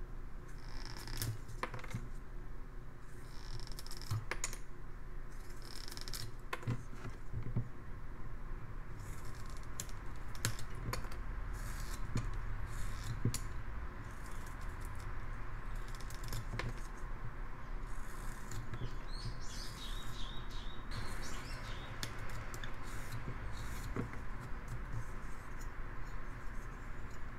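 Hand carving knife whittling a basswood block: irregular scraping, slicing cuts with small clicks and ticks as wood chips come away.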